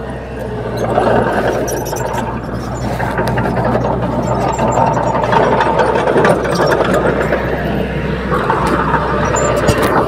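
Small crawler bulldozer's diesel engine running steadily under load as it pushes soil and stones, with scattered clanks and clicks from the tracks and rocks.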